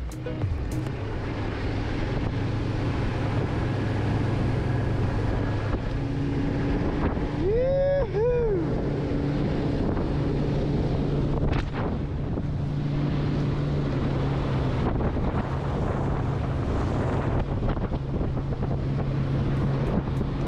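A small boat's outboard motor running steadily under way, with wind buffeting the microphone and water rushing past the hull. About eight seconds in comes a brief two-part pitched cry that rises and falls.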